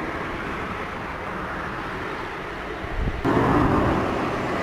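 Amateur outdoor recording of a so-called 'trumpet in the sky' sound: a steady background of wind and rumble, then a little over three seconds in a louder drawn-out mid-pitched sound sets in abruptly.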